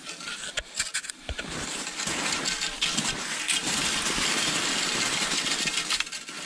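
Skis crunching and scraping through snow as the skier moves forward, with a few sharp clicks at first. The noise builds over the first two seconds, stays steady and loud, and stops about six seconds in.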